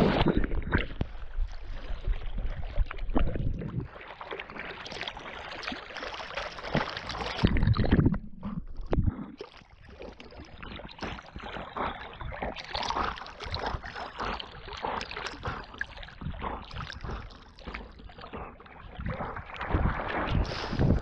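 A Labrador retriever swimming, its strokes splashing and sloshing water close to the GoPro it is wearing in irregular, choppy bursts. There is a loud splash right at the start.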